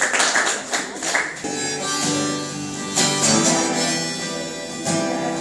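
Applause tailing off, then an acoustic guitar and a harmonica starting a song: held harmonica notes over strummed guitar chords, with fresh strums about halfway through and near the end.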